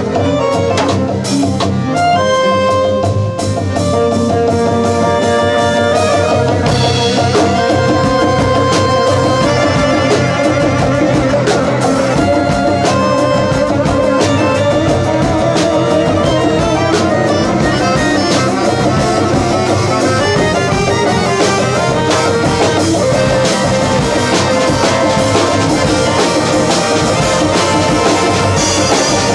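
Live band playing: drum kit, electric guitar and accordion over a steady beat.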